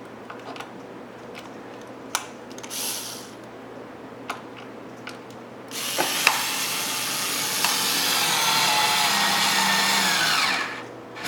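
Cordless drill driving a wood screw into pine: a brief blip of the trigger about three seconds in, then a run of about five seconds that slows slightly just before it stops. Light clicks and taps of parts being handled come before it.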